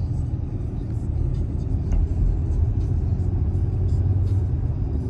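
Steady low rumble of a running motor vehicle, with a few faint clicks.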